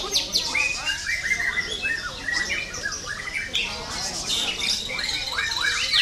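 White-rumped shama singing: a fast, varied run of whistled notes that slide up and down, mixed with chattering calls and short high trills.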